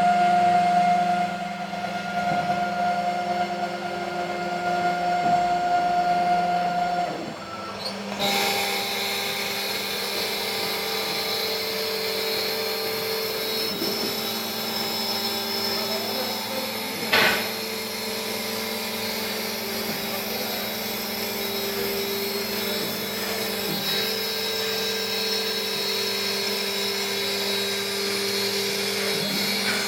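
CNC router spindle running steadily while cutting. About 8 s in its pitch changes and a cutting hiss joins it, with one sharp snap about 17 s in.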